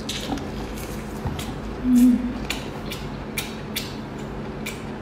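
Cooked lobster claw shell being bitten and cracked: a series of sharp crackling clicks, about two a second, with a brief low hum about two seconds in.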